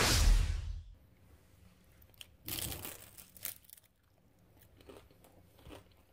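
Crisp crunching and crackling of a fried corn tortilla chip, in short bursts about two and a half and three and a half seconds in. It follows a loud burst of noise at the very start that fades out within a second.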